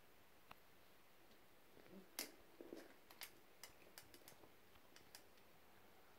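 Kittens scuffling on a hard floor: a run of faint clicks and light taps over about three seconds, otherwise near silence.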